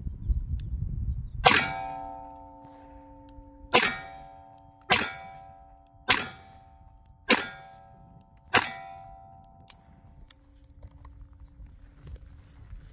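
Six shots from a 6-inch Smith & Wesson 586 revolver firing .38 Special +P 158-grain loads, spaced one to two seconds apart. Each report is followed by a metallic ring that fades over a second or two.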